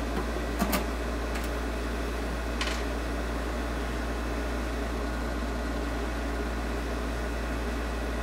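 Steady background hum and hiss, with a few light clicks of small metal parts being handled: one about a second in, and fainter ones shortly after and near three seconds in.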